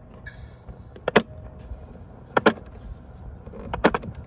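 Band-selector push-buttons on a Zenith Trans-Oceanic R-600 portable radio clicking as they are pressed, three sharp clicks a little over a second apart. A steady high-pitched hiss runs underneath.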